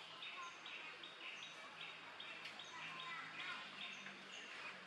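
Bird calling over outdoor background: a steady run of short, high repeated notes, about two or three a second, with fainter, higher notes between them.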